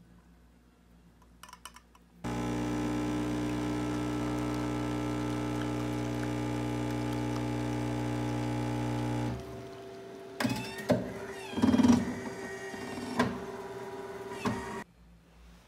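Espresso machine brewing into a mug of ice and milk. A loud steady machine hum starts about two seconds in and lasts about seven seconds, then drops to a quieter steady tone with scattered sharp pops and drips as the coffee keeps pouring. It stops shortly before the end.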